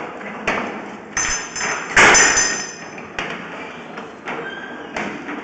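A series of separate knocks and clinks of hard objects, about six in all, the loudest about two seconds in, with a brief high metallic ring around it.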